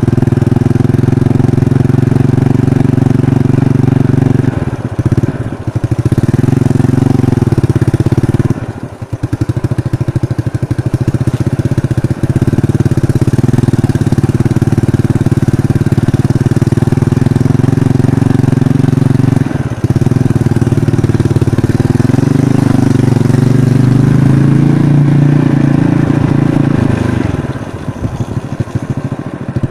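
Trail motorcycle engine running at low, fairly steady revs under a rider, with the throttle eased off briefly about four times.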